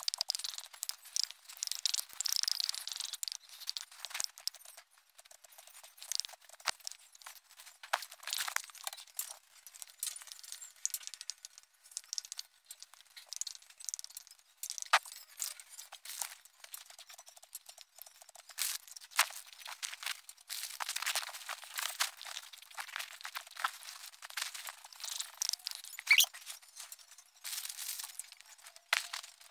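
Handling noise on a phone's microphone: irregular rustling and crackling with scattered sharp clicks, coming and going in patches.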